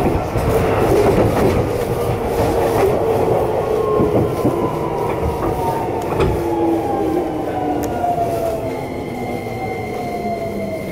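Electric commuter train heard from inside the car as it brakes into a station: the traction motors whine in a tone that falls steadily in pitch over the wheel and rail rumble, and a steady higher tone comes in about nine seconds in.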